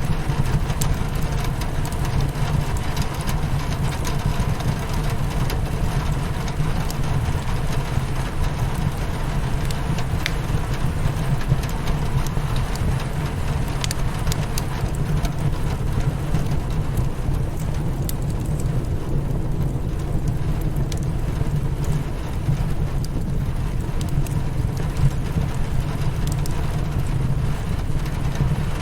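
Steady rain on a window with a fireplace crackling, a constant low rain noise broken by scattered sharp pops from the fire.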